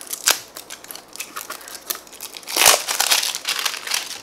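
Clear plastic wrap on a small plastic slime container being handled and peeled, a run of sharp crinkles and crackles that grows into a louder cluster about two and a half seconds in.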